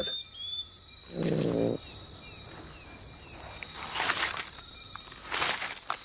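Night rainforest ambience: a steady, high-pitched insect chorus, with a short low call about a second in, a few faint falling chirps after it, and two brief bursts of rustling in the second half.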